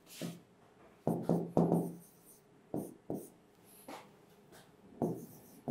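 Marker pen writing on a whiteboard: a series of short strokes in quick clusters as words and figures are written.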